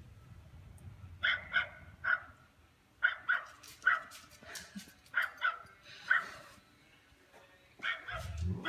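Small dog screaming: high-pitched yelps and barks in quick runs of two or three, repeated with short pauses. A low rumble comes near the end.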